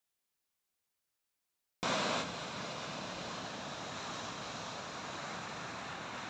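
About two seconds of dead silence, then a steady rush of wind and sea surf breaking on the shore, cutting in abruptly.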